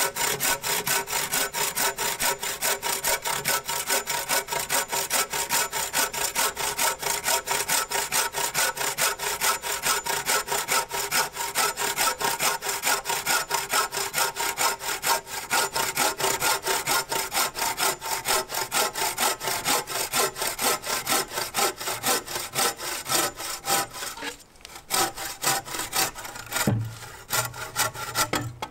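A 16-inch hand bow saw cross-cutting a green ash pole in fast, even back-and-forth strokes. About 24 seconds in the strokes falter, come back unevenly for a few seconds and stop near the end as the cut finishes.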